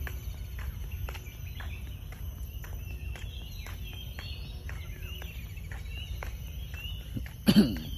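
Many small birds chirping in quick sharp calls over a steady high insect buzz. A brief loud thump comes near the end.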